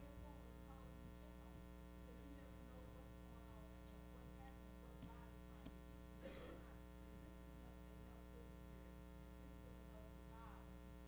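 Near silence: a steady electrical mains hum in the recording, with one brief soft rustle-like noise about six seconds in.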